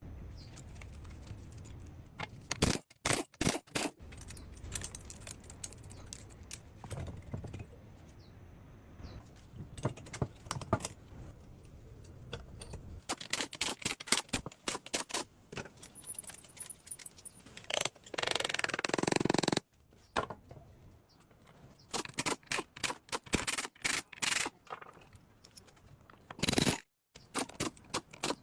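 Metal parts and hand tools clinking, knocking and scraping as a motorbike is worked on, in many separate sharp clicks and knocks. About two-thirds of the way through, a louder steady noise lasts about a second and a half.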